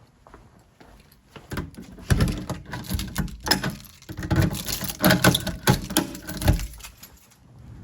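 Fire alarm pull station being worked with its key: a quick run of metallic clicks, clacks and key rattles, starting about a second and a half in and stopping about a second before the end.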